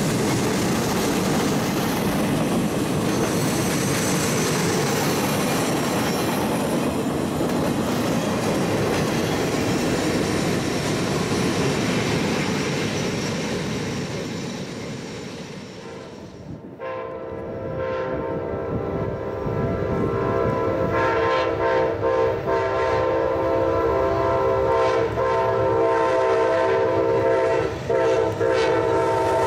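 A train rolls past, its wheels clattering over the rail joints, and the noise fades away after about fifteen seconds. Then a locomotive air horn sounds a held chord of several tones for the rest of the time, with a few brief dips.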